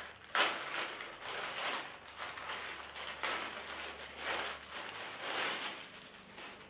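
Clear plastic bag crinkling and rustling as a cap is pulled out of it by hand, in irregular crackles that die away near the end.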